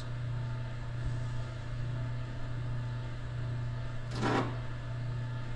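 Steady low hum of workshop background noise, with one brief sound about four seconds in.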